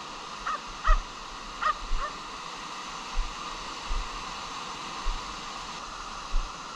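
A dog barking, short barks in quick pairs in the first two seconds, over the steady wash of surf. After that only the surf goes on, with a few low bumps on the microphone.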